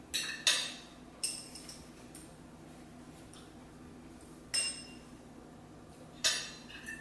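Tableware clinking: about six sharp clinks in uneven groups, two of them ringing briefly with a high tone.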